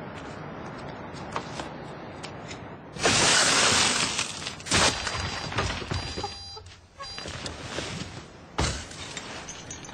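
Car window glass smashed about three seconds in, a loud burst of breaking glass. Sharp knocks and clicks follow, with a thud near the end.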